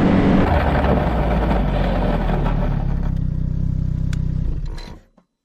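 Snowmobile engine running steadily, then dying away to silence as it is shut off about five seconds in.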